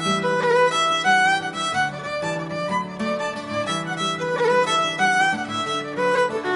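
Background music: a fiddle playing an Irish-style tune over a low, sustained accompaniment.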